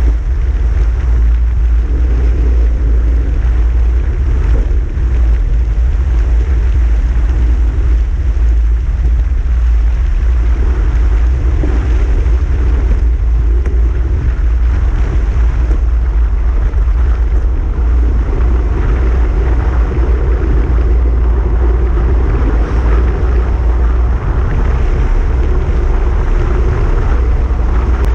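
Steady, heavy wind rumble buffeting the microphone of a handlebar-mounted camera on a fast-moving road bicycle, with tyre noise from the road underneath.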